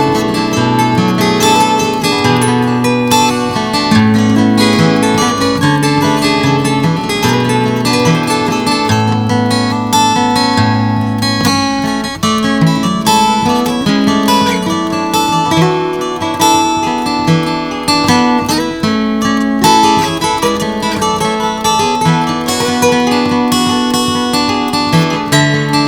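Background music: acoustic guitar playing, plucked and strummed, with a steady bass line.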